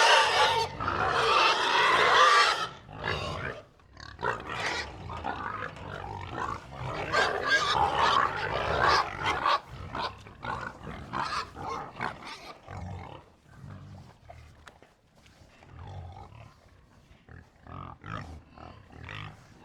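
Pigs grunting in irregular short bursts, loudest and densest in the first three seconds, then sparser and fainter.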